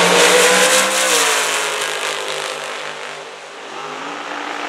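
Two Top Dragster race engines at full throttle as the cars launch and run down the drag strip. The engine note steps down about a second in and fades as they pull away, then rises again near the end.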